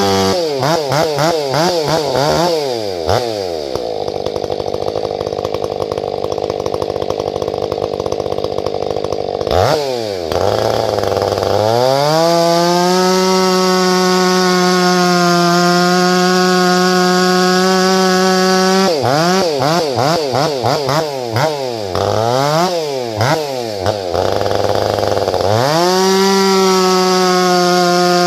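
Large two-stroke gas chainsaw cutting tamarack firewood at high revs. Its engine pitch swings up and down several times, dips briefly about ten seconds in, then climbs back to a long steady high whine, twice.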